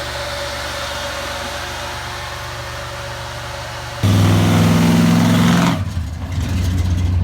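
Pickup truck engine running with a steady hum, then about four seconds in a sudden switch to a louder, deeper engine note that holds for about two seconds before easing off.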